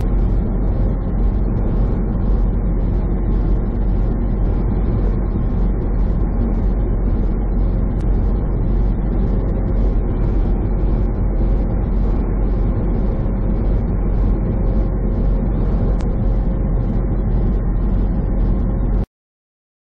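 Steady low rumble of a semi truck driving at highway speed, engine and road noise heard from inside the cab, with a faint steady hum on top. It cuts off abruptly near the end.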